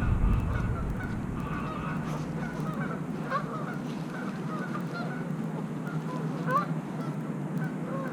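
Geese honking, many short calls overlapping, one louder call about six and a half seconds in. A low rumble fades out in the first second.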